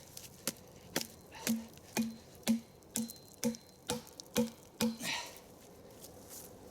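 Wooden wedges being driven in by a series of blows, about nine or ten solid knocks at roughly two a second, each with a short hollow ring, stopping about five seconds in.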